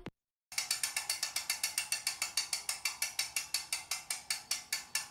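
Rapid, even mechanical clicking, about six sharp clicks a second, starting about half a second in.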